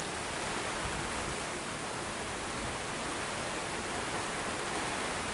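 Steady rain falling from a hurricane rain band, an even hiss of rain on the patio tiles and gravel.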